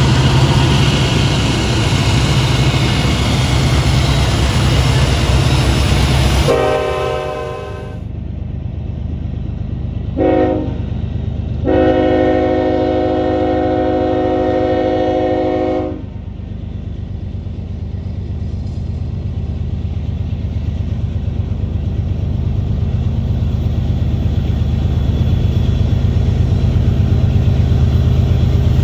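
Union Pacific diesel freight locomotives rumbling past close by. Then a BNSF diesel locomotive's air horn sounds three blasts, two short and a last one of about four seconds. Its engine rumble grows steadily louder as the train approaches.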